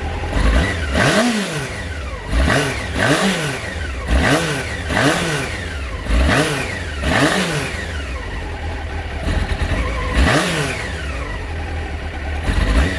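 1989 Honda CBR600's inline-four engine idling while the throttle is blipped about nine times, each rev rising and falling back to idle, with a short lull before the last one. The owner hears a real flat spot between 1,000 and 2,000 rpm on the revs.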